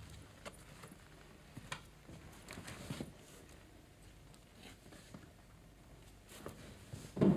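Faint rustling of a heavy winter coat and small knocks of handling as a fur hat is hung on a wooden peg and the coat is taken off, in a small room. A louder knock comes near the end.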